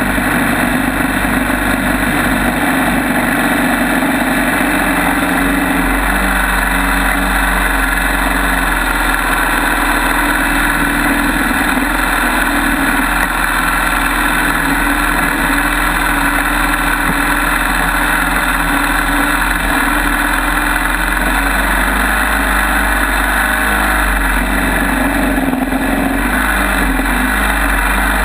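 Backwater Inc longtail mud motor running steadily under load, its propeller churning water behind the boat.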